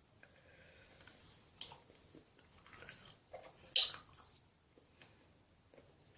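A person chewing a piece of Airheads Stripes taffy candy: soft, wet mouth sounds and light smacks, with two sharper, louder smacks about a second and a half and about four seconds in.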